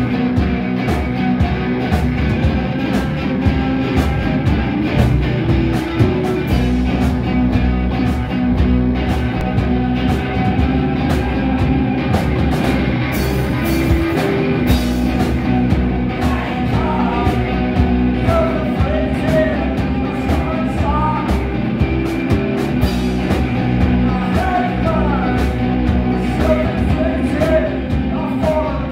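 Live rock band playing loud electric guitars over a steady drum beat. A lead vocal comes in about halfway through and carries on to the end.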